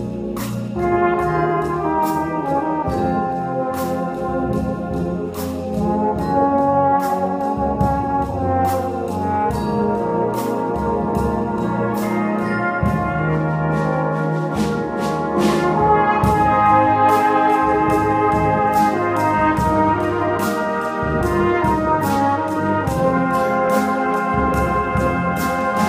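Tenor horn solo over a full brass band accompaniment, playing a slow melody in long held notes.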